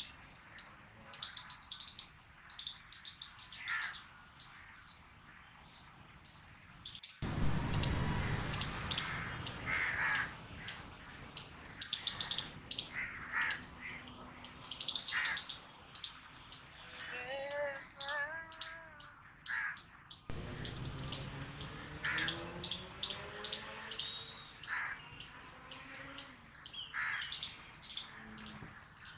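Squirrel barking: long runs of short, sharp, high-pitched chirping barks, several a second, broken by a silent gap near the start.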